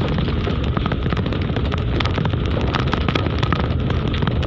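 A vehicle driving over a rough unpaved dirt road: a steady low rumble of engine and road noise with many small irregular knocks and rattles from the bumpy surface.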